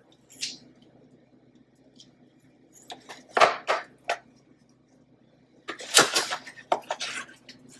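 Kitchen shears and a rack of pork ribs being handled in a disposable aluminium foil pan: a few short, sharp clicks a few seconds in, then a denser run of crinkling and rattling foil near the end.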